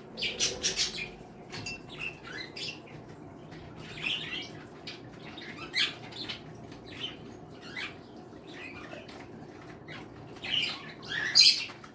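Small pet birds in an aviary room chirping and calling at random, a mix of short high notes from several birds, with a louder squawk near the end.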